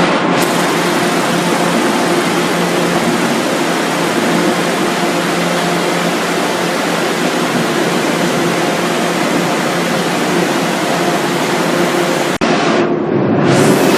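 Processing machinery of a frozen French fries production line running with a steady, loud noise and a low hum. Near the end it cuts off abruptly and a different machine sound begins.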